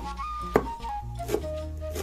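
Background music with held plucked-string notes, over which a chef's knife chops parsley on a wooden cutting board: three sharp chops, under a second apart.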